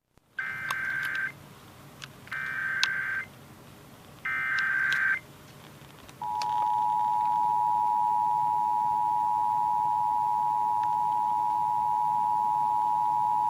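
Emergency Alert System Required Monthly Test played through an Eton FR-370 radio: three short warbling data bursts of the SAME header, then about six seconds in the steady, loud two-tone EAS attention signal begins and holds.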